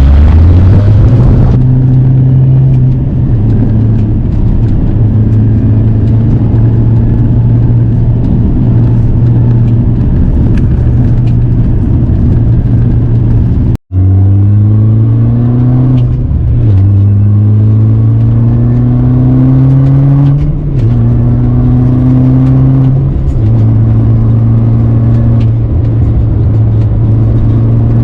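Supercharged R53 Mini Cooper S engine with an aftermarket cat-back exhaust, running under way. It holds a steady drone for about the first half. After a sudden cut near the middle, the pitch climbs and drops back several times as it pulls through the gears.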